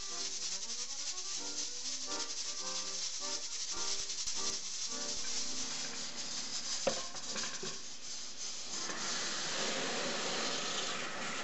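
Background music over the hiss and rattle of a stovetop pressure cooker's weight as steam escapes at full pressure. About three quarters of the way through, tap water starts pouring steadily onto the cooker's lid in a steel sink to cool it down.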